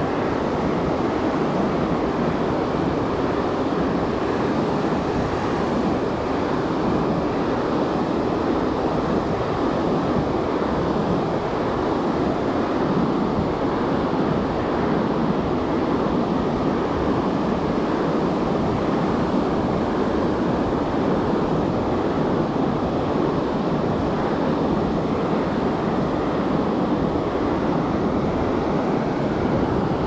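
Pacific Ocean surf: a steady, even wash of breaking waves with no single crash standing out.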